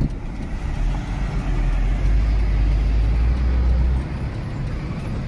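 Hino truck's diesel engine running low and steady as the truck rolls slowly over a dirt lot, heard from the cab; the deep rumble eases off about four seconds in.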